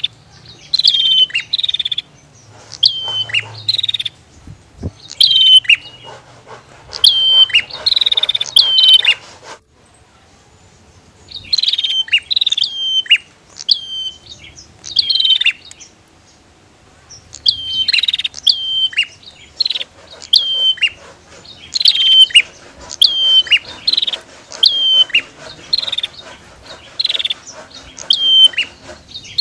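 Prenjak (prinia) calling: sharp, loud chirps repeated about two a second, each note dropping in pitch, with two short pauses around the middle.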